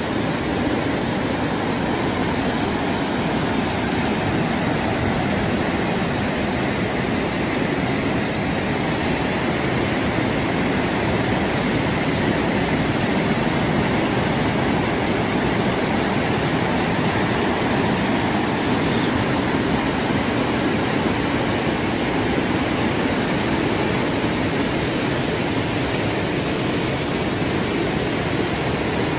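Floodwater rushing through a swollen urban arroyo channel: a steady, loud torrent of fast, turbulent water, unchanging throughout.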